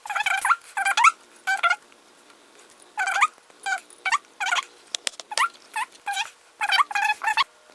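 A series of short, squeaky animal calls, each rising in pitch, repeated irregularly about once or twice a second.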